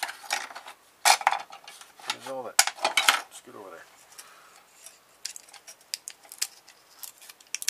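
Hard plastic parts of a hair straightener clicking and knocking as they are handled and pried apart with a screwdriver against a wooden workbench, in irregular sharp knocks. The loudest come about a second in and around three seconds, followed by lighter ticks.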